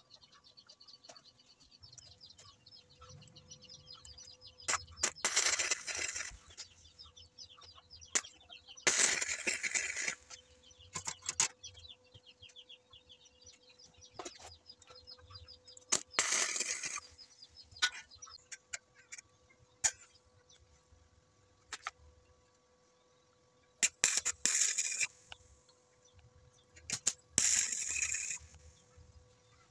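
MIG welder laying short tack welds on steel tubing: several bursts of arc crackle, each about a second long, with pauses between them.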